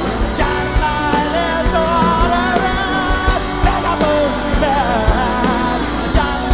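Rock band playing live, recorded straight from the soundboard: drums and bass with a wavering lead melody line on top.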